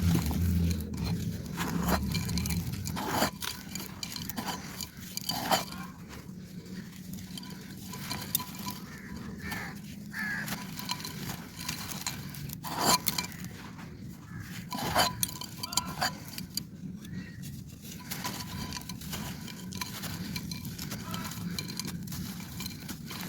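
Dry clay pot crumbling and being crushed: irregular dry crunches and crackles, with several louder snaps scattered through.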